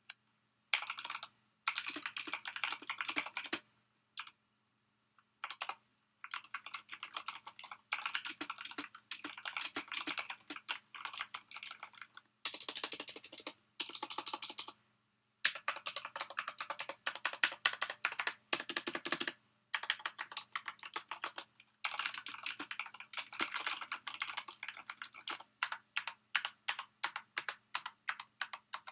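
Typing on a Corsair K95 RGB Platinum XT mechanical keyboard with Cherry MX Speed switches, in fast runs of keystrokes broken by short pauses. Near the end it slows to evenly spaced single key presses, a few a second. A faint steady hum sits underneath.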